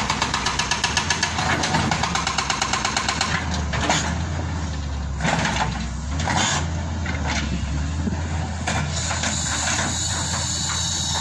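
Caterpillar tracked excavator's diesel engine running steadily as the machine works, with a fast rhythmic clatter over the first few seconds and a few sharp knocks a little later.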